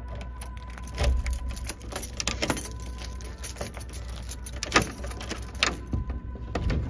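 Keys on a keyring jangling and a key clicking and grating in an old door lock as it is unlocked, with sharp clicks about a second in and again near the end, over a steady low rumble.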